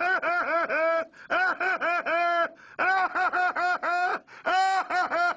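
A high-pitched voice laughing in rapid, even 'ha-ha-ha' runs, about five laughs a second, broken into four runs with short pauses between them.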